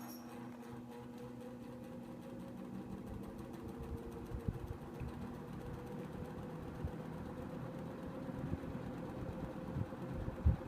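1966 GE Model W22 20-inch box fan running on low, just switched on from cold: a steady motor hum over the rush of air from its five-wing plastic blade, growing a little louder as the fan gathers speed. A few soft knocks near the end.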